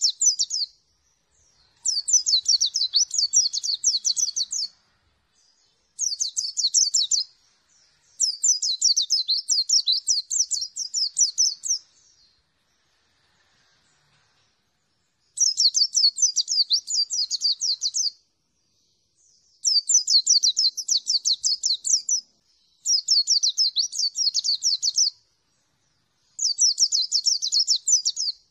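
Yellow-breasted (dakun) white-eye singing a run of rapid, high-pitched warbling phrases. Each phrase lasts a few seconds, with short pauses between them and a longer pause about halfway through.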